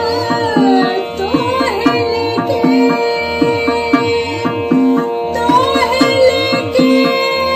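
A woman singing a dadra in raag Mishra Pilu, Hindustani semi-classical vocal, with melodic glides between phrases. Tabla keeps a steady repeating cycle with gliding bass-drum strokes, over a constant drone.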